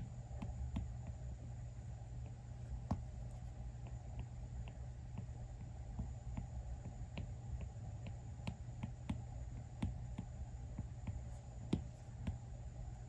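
Apple Pencil tip tapping and stroking on an iPad Pro's glass screen during sketching: light, irregular clicks over a low steady hum.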